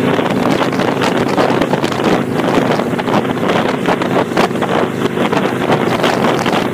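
Kawasaki Vulcan 800 V-twin running steadily under way through Vance & Hines Straightshots pipes with the baffle plugs removed, a loud, open exhaust note. Heavy wind buffets the microphone throughout in irregular gusts.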